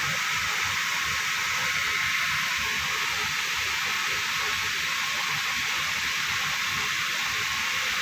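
Steady, even background hiss with a faint low rumble underneath, unchanging throughout.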